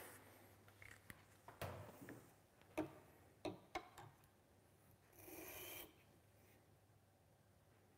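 Faint handling sounds of a knife in its sharpening jig being set on a Tormek grinder's support bar: a few light clicks and knocks, then a brief rubbing scrape about halfway through as the blade is laid against the grinding wheel.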